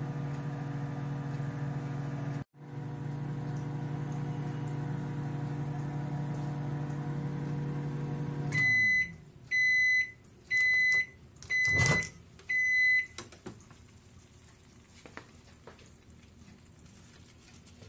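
Hamilton Beach microwave oven running with a steady hum, then shutting off about eight and a half seconds in as its timer runs out, the hum sliding down in pitch as it stops. Five high beeps follow about a second apart, the end-of-cycle signal, with a sharp click during the fourth beep.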